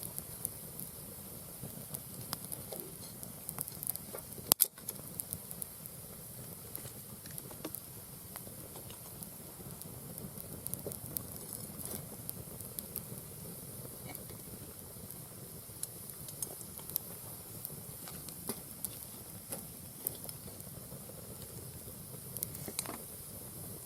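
Mixed firewood burning in a round fire-pit stand: a steady crackle and hiss with scattered small pops, and one loud sharp crack about four and a half seconds in.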